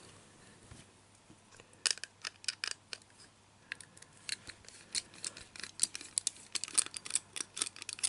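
Small precision screwdriver unscrewing the screw that holds a diecast model to its black plastic display base. A run of light, irregular clicks and scratches begins about two seconds in.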